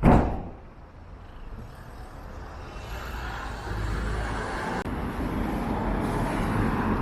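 Street traffic: a sharp thump right at the start, then a road vehicle's engine and tyre noise building from about two seconds in and holding steady.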